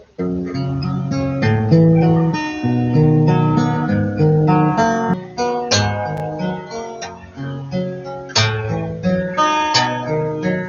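Acoustic guitar, a China-made Thompson clone, played without singing: a tune picked out note by note over bass notes, with a few strummed chords in the second half.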